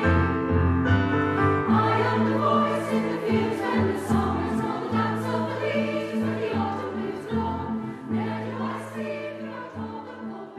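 A women's choir singing with piano and bass accompaniment, held notes over a steady bass line. The music slowly fades toward the end.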